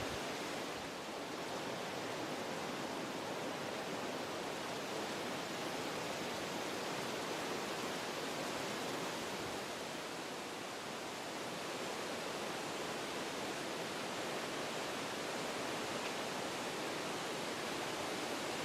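Wind blowing through forest trees, a steady rushing of leaves and branches that swells and eases slightly in gusts.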